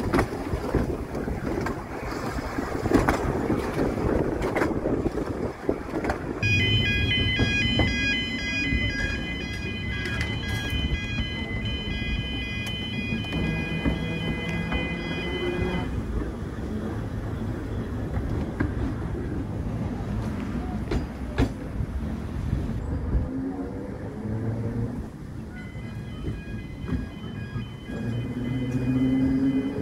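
Electric tram of the Seaton Tramway running along its narrow-gauge track, with wind and wheel-on-rail noise. A high, repeating electronic beeping sounds for about ten seconds from roughly six seconds in, and starts again near the end.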